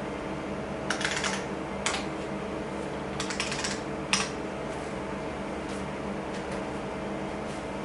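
Keys being typed on a vintage IBM computer keyboard to log in: a few short clusters of keystrokes in the first half, over the steady hum of the running PCs' fans and drives.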